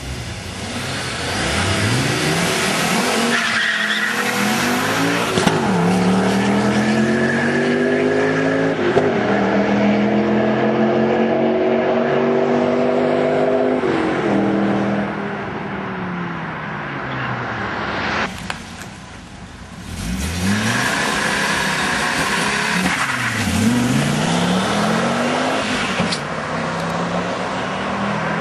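Turbocharged five-cylinder Audi engines launching from a standing start and accelerating hard. The engine note climbs through the gears and drops back at each shift, a few times in the first half. Later, cars go by at speed with the note sweeping up and falling away.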